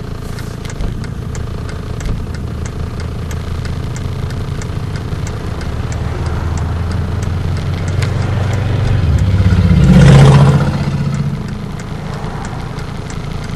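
Mercedes-Benz 300D 2.5 inline-five turbodiesel idling steadily at operating temperature, with a light regular ticking a few times a second; the idle sounds good and even. A louder swell of passing traffic rises and fades about ten seconds in.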